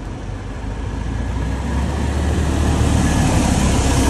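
Road traffic noise: a motor vehicle's low rumble with tyre and road hiss, growing steadily louder over the few seconds.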